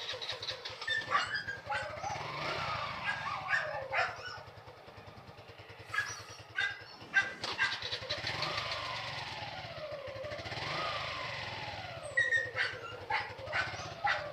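A dog barking in short sharp bursts and howling in long cries that rise and fall, over the low steady running of a motorcycle engine.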